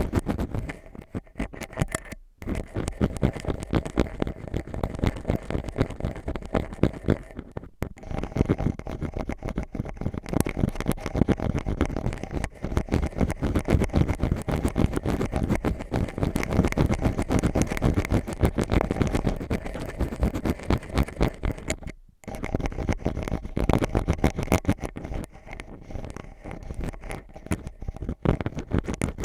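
Ear pick scratching and scraping in rapid, continuous strokes, close to the microphone, with three brief pauses.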